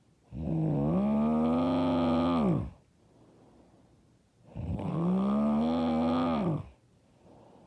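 A woman snoring loudly: two long snores about two seconds each, roughly four seconds apart. Each dips low in pitch at the start, then rises and holds steady.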